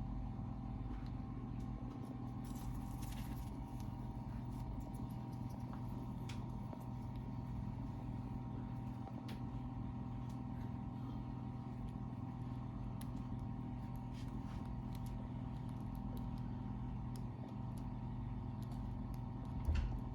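A steady machine hum with several constant tones, a few faint scattered clicks, and a short thump near the end.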